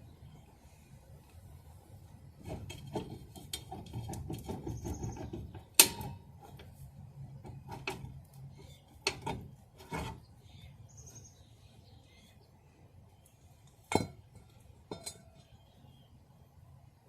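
Hand work on a trailer's drum brake assembly: a few seconds of rubbing and scraping, then a series of separate sharp knocks and clinks of metal parts and tools being handled, the loudest about six seconds in.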